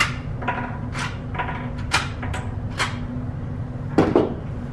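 Sharp clicks and knocks of guns and gear being handled on a shooting-range bench, about five in the first three seconds, then a heavier thump about four seconds in, over a steady low hum.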